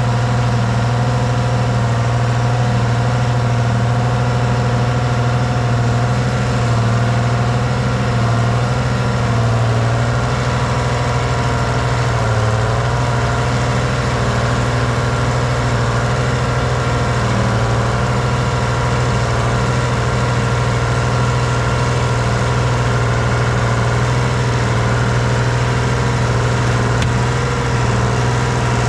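Diesel engine of a 1978 Hein-Werner excavator idling steadily, with a strong low hum.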